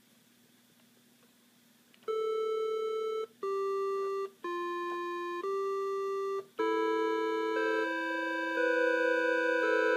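Casio SA-46 mini keyboard playing a preset voice, a steady electronic tone that holds without fading. After about two seconds of quiet, four single notes sound, each held about a second, then notes are added one by one into a held chord.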